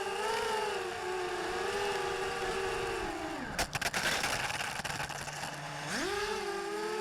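FPV racing quadcopter's brushless motors whining, the pitch wavering with throttle. About three and a half seconds in the whine drops away into a rushing noise with a few sharp clicks, then rises steeply again about six seconds in as the throttle comes back up.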